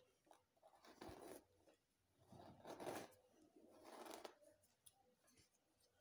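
Faint swishing and rustling of hair being handled: three soft swishes as hands separate sections and work braiding-hair extensions into cornrows on a mannequin head.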